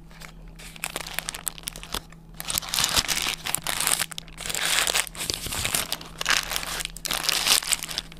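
Paper wrapper of a shawarma crinkling and rustling in bursts as it is handled and peeled back from the wrap, loudest in the second half.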